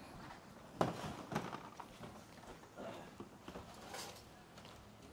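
A few light knocks and clatters, with quiet scuffing between them, as plastic five-gallon water containers are handled.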